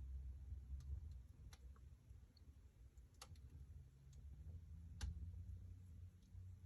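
Wood fire in a fireplace crackling faintly: a few sharp, isolated pops over a low rumble.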